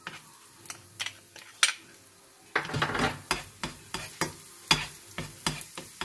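Garlic frying in hot oil in a pan, stirred with a utensil that knocks and scrapes against the pan about two to three times a second. The sizzle grows louder about two and a half seconds in.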